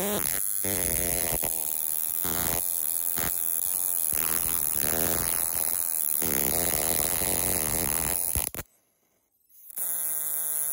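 Electric arc from a small high-voltage igniter transformer module buzzing steadily across its spark gap while it lights a matchstick held in the gap. The buzz cuts off about eight and a half seconds in, is silent for about a second, then starts again near the end.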